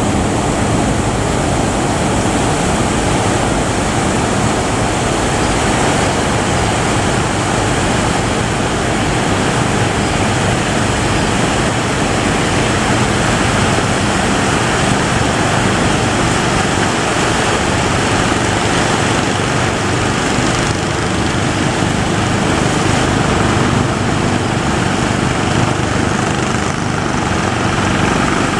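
Big breaking waves: a steady, loud rush of surf with no pauses.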